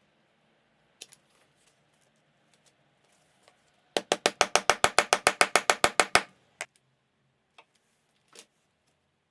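A rapid, even run of about sixteen sharp mechanical clicks over roughly two seconds, with a few scattered light knocks before and after.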